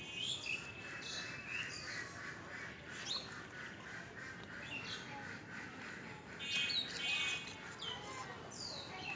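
Birds calling: a run of short chirps and squawks, with a louder stretch of harsh pitched calls about two-thirds of the way in.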